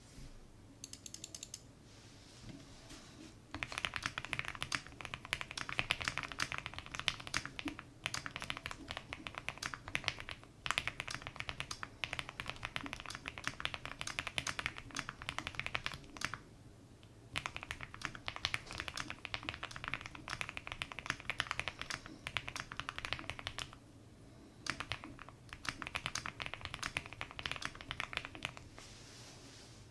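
Mechanical keyboard typing on a Wuque Studio Mammoth 75 with lubed Aqua King linear switches and GMK ABS keycaps: fast runs of key clicks with short pauses between them. A few keystrokes come in the first second, and steady typing starts a few seconds in.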